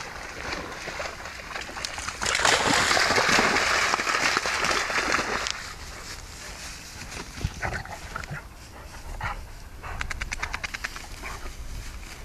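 Dogs moving through wet heath and tall grass: a loud rough rustling noise for about three seconds, then lighter brushing and rustling with a quick patter near the end, and a dog panting.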